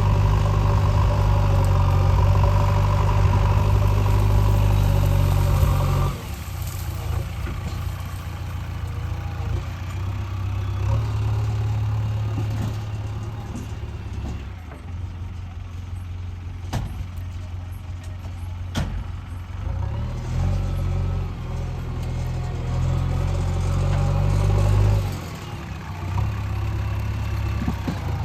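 Diesel engine of a JCB 3DX backhoe loader, working loud for about six seconds, then dropping suddenly to lower revs. It rises and falls a few times after that, with a couple of sharp knocks near the middle.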